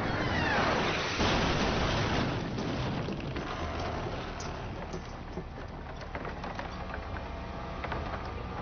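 A sudden loud rushing whoosh with falling whistling tones, easing after a couple of seconds into a crackling, rattling hiss with scattered clicks.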